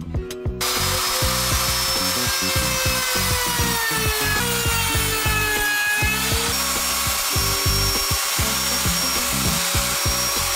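Handheld trim router running, its bearing-guided bit cutting a rounded corner into veneered particleboard along a radius template. It starts about half a second in and runs steadily, its whine sagging a little in pitch under the cut and then recovering.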